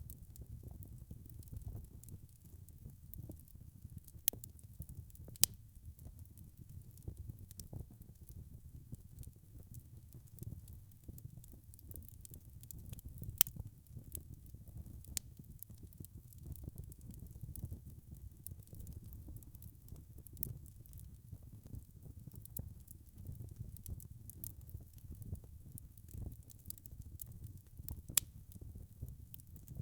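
Wood fire burning in a fireplace: a steady low rumble of flames with scattered small crackles and a few louder, sharper pops from the burning logs.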